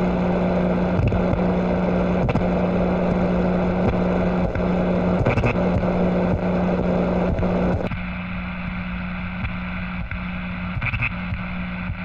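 Glitchy TV-static sound effect: a loud hiss of static noise over a steady low buzz that breaks off briefly now and then. About eight seconds in, the brighter part of the hiss cuts out suddenly, leaving a duller static.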